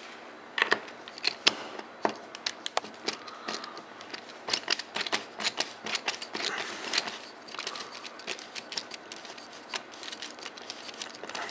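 Screwdriver with a socket bit undoing the forend screws on a Tikka T3X synthetic rifle stock: a run of irregular sharp clicks and ticks.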